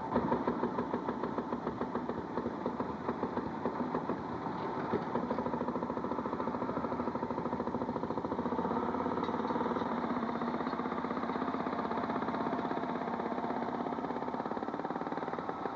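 Railroad motorcar engine running steadily, a rapid, even run of firing strokes.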